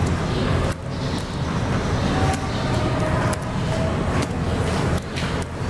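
Steady low background rumble, like road traffic, with no speech over it.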